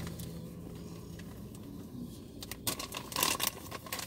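A popcorn snack bag crinkling as it is handled and a hand reaches into it, in a cluster of crackles about three seconds in after a quieter start.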